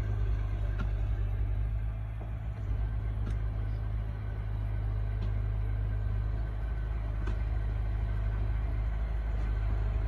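Engine running steadily at low speed, a constant low hum with a few faint ticks.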